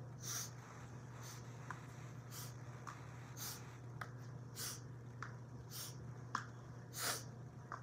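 A tennis ball tossed and caught in the hand: faint soft taps about every second, alternating with short hissy puffs, over a steady low hum.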